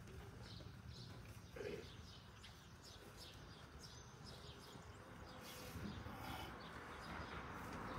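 Faint outdoor quiet with small birds chirping, many short chirps repeating, over a low hum of background noise. A brief muffled sound comes about one and a half seconds in.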